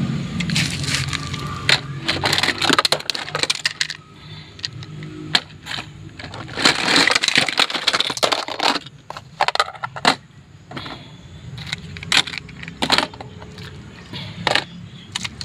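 Toy vehicles clattering and knocking against one another as they are pushed into a crowded container: irregular clicks and rattles, busiest a little past the middle.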